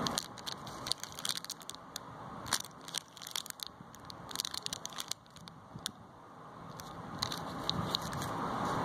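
Plastic wrappers of a chocolate bar and small wrapped toffees crinkling and crackling in quick, irregular clicks as they are handled. A steady background rush grows louder over the last couple of seconds.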